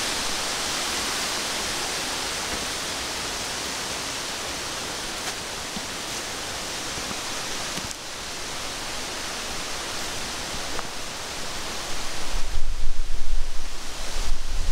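Steady outdoor wind noise, an even hiss that fades slowly. About two seconds before the end, low gusts start buffeting the microphone.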